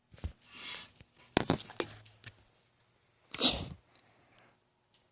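Handling noise from a ceiling fan being held up and moved: a few sharp metallic clicks and a brief jangle, with short rustles in between.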